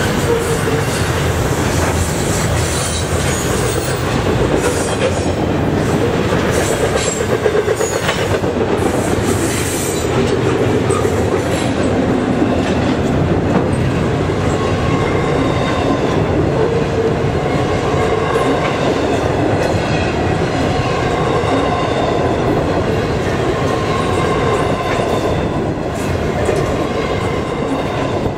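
Double-stack container well cars of an intermodal freight train rolling past, a loud, steady rumble and rattle of steel wheels on the rails, with faint whining wheel tones in the second half.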